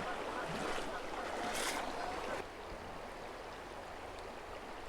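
Shallow river water running, a steady rushing hiss, with a brief sharper burst about a second and a half in; it grows quieter about two and a half seconds in.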